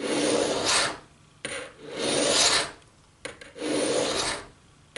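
A 10-inch hand file pushed along the edge of a steel broadhead under light pressure, sharpening it: three rasping strokes of about a second each, with short pauses between them as the file is brought back.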